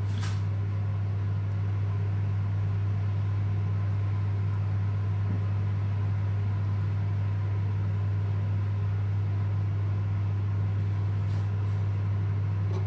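A steady low hum at an even level, of the kind a running motor, fan or electrical appliance makes.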